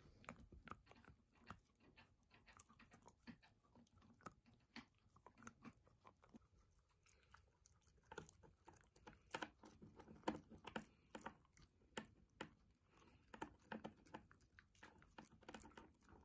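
Shiba Inu puppy gnawing on a chew stick: faint, irregular crunching and clicking of teeth on the stick, louder and busier in the second half.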